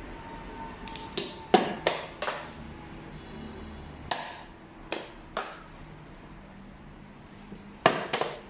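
Xiangqi pieces clacking down on the board as moves and captures are played: a quick run of four sharp clacks about a second in, a few more in the middle, and two close together near the end.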